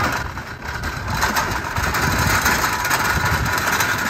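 Metal wire utility cart pushed across rough asphalt, its small wheels rolling and the frame and its load rattling continuously.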